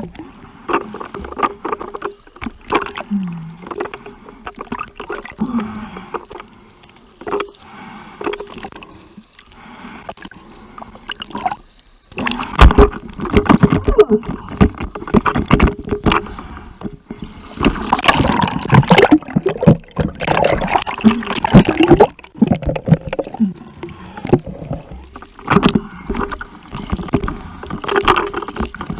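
Sea water splashing and sloshing close to the microphone in irregular bursts, getting much louder about twelve seconds in.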